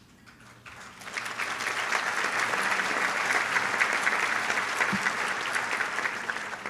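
Audience applauding, building up about a second in, holding steady, and fading out near the end.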